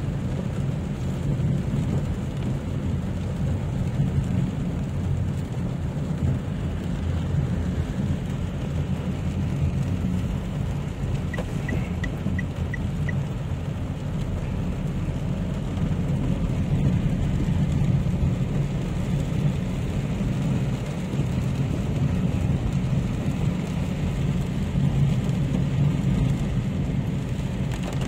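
Rain falling on a Toyota Wigo hatchback, heard from inside the cabin over the steady low rumble of the car driving on a wet road. A short run of about five faint ticks comes roughly halfway through.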